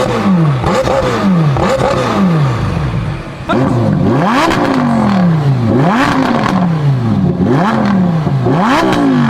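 McLaren 720S's 4.0-litre twin-turbo V8 being driven hard on track, its pitch sweeping up and down again and again through gear changes.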